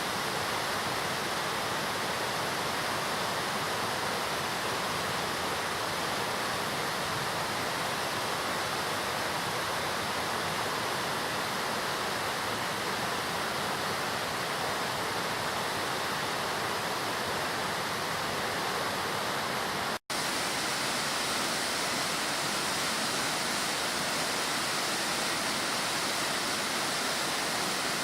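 Hakusen waterfall's heavy flow of water crashing down, a dense, steady rush. It cuts out for an instant about two-thirds through and resumes a little brighter in tone.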